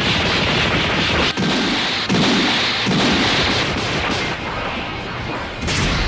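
Loud anime-style fight sound effects: a dense, continuous run of energy blasts and impacts, with music underneath.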